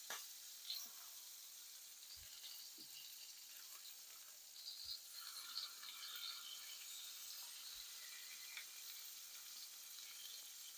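Faint sizzling of pancakes frying in a pan on the stove, with a few soft knocks.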